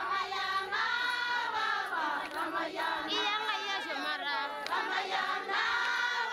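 A group of Maasai women singing together, many voices at once in a choral chant.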